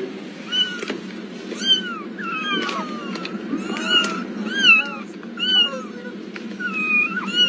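A cat meowing over and over in short calls, more than one a second, some rising and some falling, over a steady low background noise.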